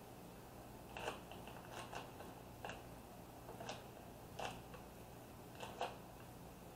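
Faint, irregular crackles and small ticks, about ten of them, of vinyl stencil and transfer tape being pressed down onto a tumbler cup by gloved hands, over a low steady hum.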